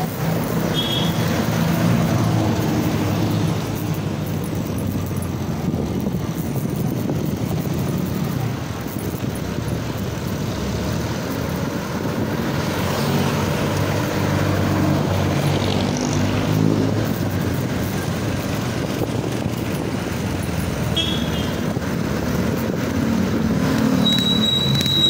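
Street traffic: engines of passing motorcycles, motorcycle tricycles and jeepneys running, swelling and fading as they go by. There are two brief high beeps, one about a second in and one near the end, and a thin steady high tone starting at the very end.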